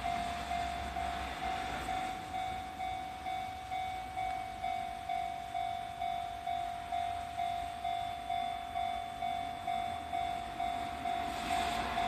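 Japanese level-crossing warning bell ringing with its electronic clang, an even repeating beat of a little under two strikes a second, while the crossing lights flash and the barrier is down for an approaching train.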